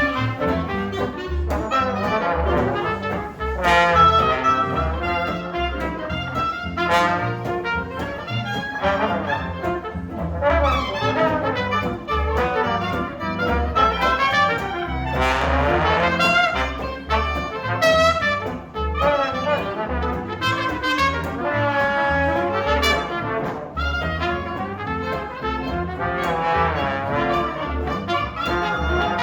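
A live jazz band playing after a count-off, with horns carrying the melody over a steady low beat.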